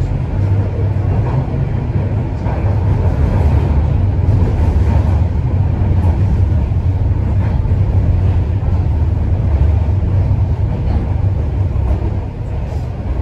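TTC Toronto Rocket subway train running at speed between stations, heard from inside the car: a loud, steady low rumble of wheels on rail and traction motors, easing slightly near the end.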